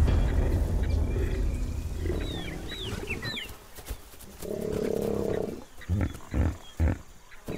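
A lion growling, loudest over the first two seconds and again briefly past the middle, with a few dull thumps near the end. Small birds chirp briefly in the background.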